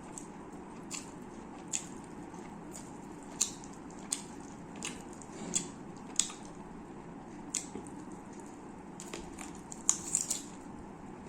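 Close-up eating sounds: wet, irregular clicks and smacks of chewing biryani, about one every second, with a cluster near the end, over a steady low background hum.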